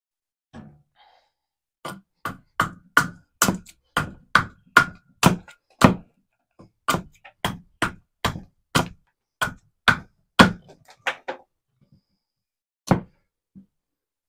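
Hand tool striking a wooden leg blank: about 25 sharp blows at roughly three a second, stopping about eleven seconds in, then one last blow a couple of seconds later.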